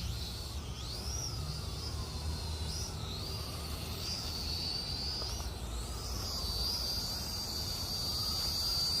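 Syma X440 mini quadcopter's motors whining high, the pitch swooping up and down as the throttle changes in flight.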